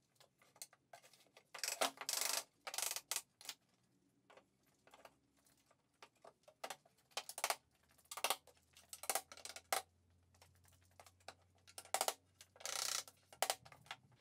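Cherry rails and legs being fitted together by hand in a dry assembly: irregular light knocks and clicks as the tenoned joints are pushed home, with a few short rubbing or scraping sounds of wood sliding on wood.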